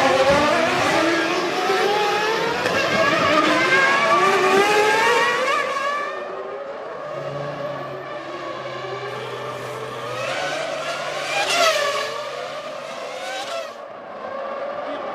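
1999 Formula One cars' V10 engines at racing revs. Over the first six seconds they are loud and repeatedly rise in pitch and break off as the cars shift up through the gears. Then the sound drops, and a single car passes about eleven seconds in, rising and then falling.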